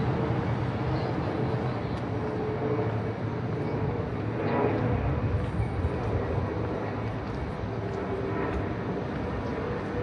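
Steady city outdoor ambience: a low rumble of traffic or distant machinery that swells briefly about halfway through.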